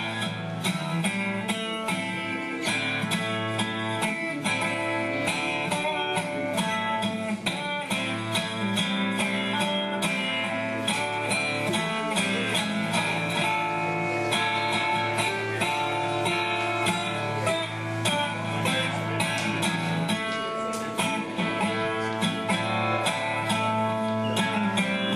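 Resonator guitar played solo, a steady instrumental passage of picked notes and strummed chords.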